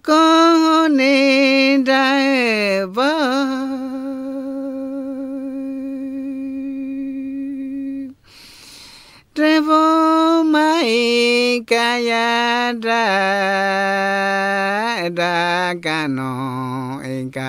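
A man singing an unaccompanied icaro, a Shipibo healing chant. Two long phrases with a short pause between: the first wavers, slides down and settles on a long held note; the second steps down in pitch to a low note near the end.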